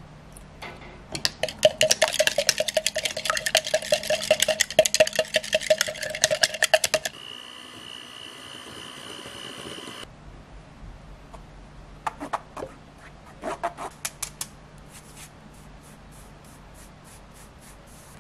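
A utensil beating rapidly in a plastic measuring jug of eggs, a quick run of sharp clicking strokes lasting several seconds. Later, flour is sifted through a stainless mesh sieve into a glass bowl, with a few knocks and then light, even tapping of the sieve.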